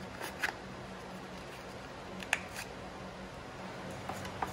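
Light clicks and taps of hands handling a cardboard smartphone box and its insert tray: two near the start, a sharper one a little past two seconds in, and two more near the end, over a faint steady hum.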